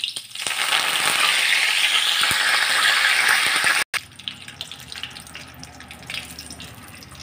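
Fresh curry leaves deep-frying in hot oil, held in a wire-mesh strainer: a loud, steady sizzle from about half a second in. After a brief break near the middle it goes on quieter, with scattered pops as the leaves fry.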